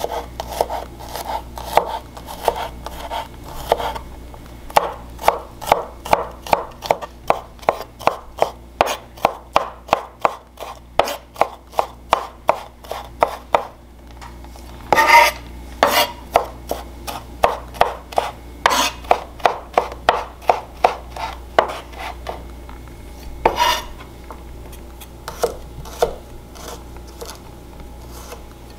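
Chef's knife mincing garlic on a wooden cutting board: quick, rhythmic knocks of the blade on the board, about four a second. About halfway through they break off briefly, then come back sparser, with a few louder knocks and the blade scraping the minced garlic together.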